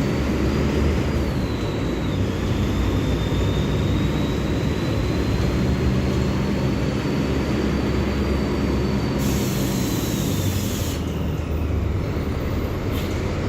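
Diesel engine of a Mercedes-Benz OF-1724L Bluetec 5 bus running under way, a steady drone with a high whine that rises slowly and then falls. A hiss of about two seconds cuts in about nine seconds in.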